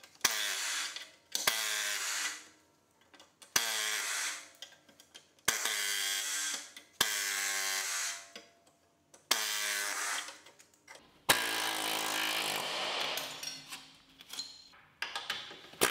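Pneumatic grinder run in about seven short trigger pulls of a second or so each, the one about eleven seconds in lasting about three seconds. Each burst starts sharply with a steady whine and hiss and tapers off after release, grinding the leftover steel of the old floor pan off a VW Beetle chassis lip.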